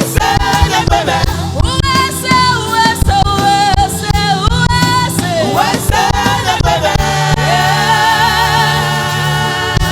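Live gospel worship music: singers over a band's keyboard, bass and drums, ending in one long wavering held note from about seven seconds in.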